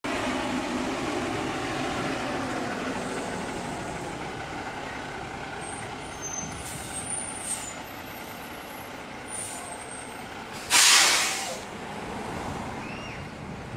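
A heavy vehicle's engine running steadily, with a short, loud hiss of air from its air brakes about eleven seconds in.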